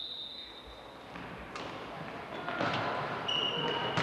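Referee's whistle blast fading out at the start, then a basketball bouncing a few times on the hardwood gym floor with the hall's echo, and a second short whistle blast near the end.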